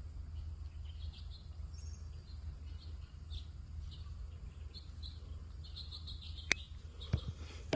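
Small birds chirping in short, repeated calls over a steady low rumble, with two sharp clicks near the end.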